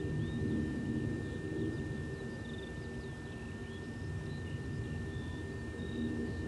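Class 08 diesel shunter's English Electric six-cylinder engine, a steady low drone as it approaches slowly, hauling a train.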